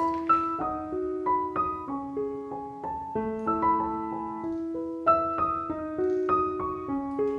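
Background piano music: a gentle melody of single notes that ring on and overlap.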